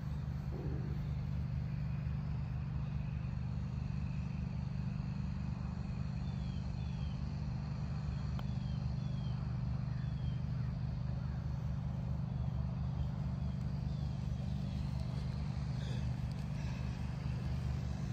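Steady low motor-like hum, with a few faint short high chirps in the middle.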